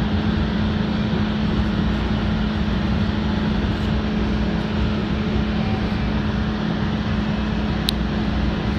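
Running noise inside a DART light rail car moving along the track: a steady rush of wheel and track noise with a steady low hum. There is a single short, sharp high tick near the end.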